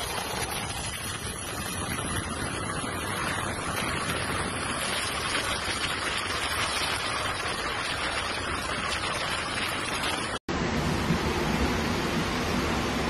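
A steady rushing noise with no distinct events. About ten and a half seconds in it breaks off for an instant and comes back heavier and deeper, as the rush of a swollen flood torrent in heavy rain.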